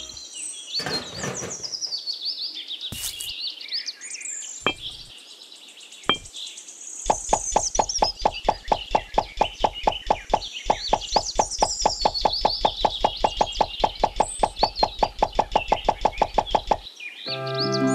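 A rapid, even run of knocks, about four or five a second, lasting about ten seconds, with a few single knocks before it. Birds chirp throughout.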